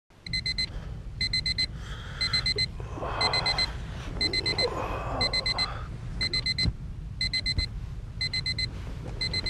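Digital alarm clock beeping in quick groups of four, about one group a second, stopping abruptly at the very end. Rustling sounds come in the middle, over a low steady rumble.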